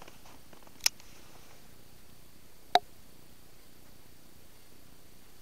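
Two brief, sharp metallic clicks about two seconds apart from a Smith & Wesson Model 629 .44 Magnum revolver being handled as it is raised to aim, over a faint steady background.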